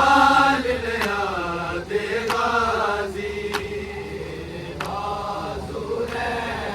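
Group of men chanting a noha in long, drawn-out sung phrases, with sharp slaps about once every second or so, the rhythm of matam chest-beating.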